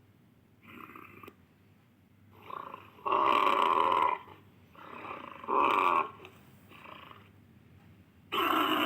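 Pelorovis creature sound effect, a series of short animal grunting calls separated by pauses. Two loud calls of about a second fall near the middle, with fainter ones between them, and a longer loud call begins near the end.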